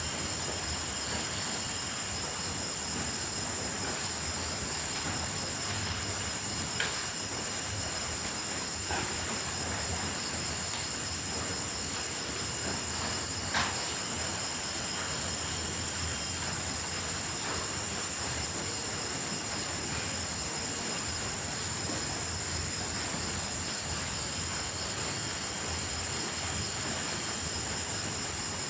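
Night insects, crickets and grasshoppers, chirring in a continuous high-pitched trill over a steady hiss, with a few soft clicks.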